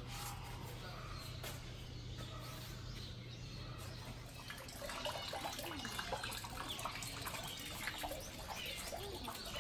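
Many small birds chirping and twittering, getting busier from about halfway, over a faint steady low hum.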